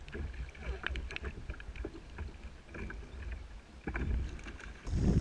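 Choppy water lapping and slapping irregularly against the hull of a plastic sit-on-top fishing kayak, over a low rumble of wind; the wind gets much louder just before the end.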